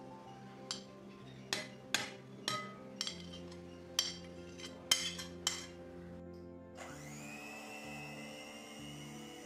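About eight sharp clinks and taps of a spatula against a glass bowl as a block of butter is scraped into it. About seven seconds in, an electric hand mixer starts, its whine rising briefly as it spins up, then running steadily as its beaters work the butter. Background music plays throughout.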